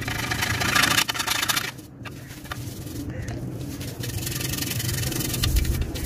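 Rapid scrubbing strokes on the metal inside a chrome exhaust tip, brushing on metal wax. The scrubbing is loudest in the first second and a half, eases off, then picks up again about four seconds in, over a steady low hum.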